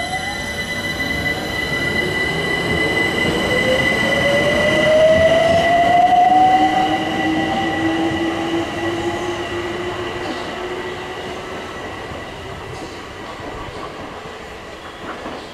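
Electric train pulling away, its traction motors whining and rising in pitch over the first several seconds before levelling off, with a steady high tone and wheel-on-rail noise. It is loudest about five to seven seconds in, then fades as it moves off.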